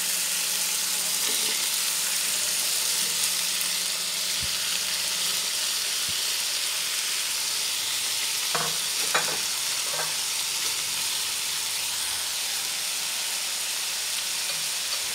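Pork and garlic sizzling steadily in hot oil in a frying pan as grey oyster mushrooms are tipped in on top, with a few short knocks about nine seconds in.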